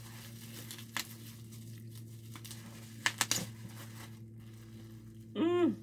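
Bubble-wrap packaging crinkling and clicking as bottles are handled out of a cardboard box, with a sharp click about a second in and a quick cluster of clicks around three seconds in. Near the end, a short hummed "mm" that rises and falls in pitch.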